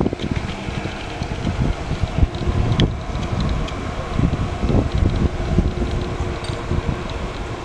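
Distant jet engines of an Etihad Boeing 787 airliner running as it moves along the runway, mixed with gusty wind buffeting the microphone in a low rumble.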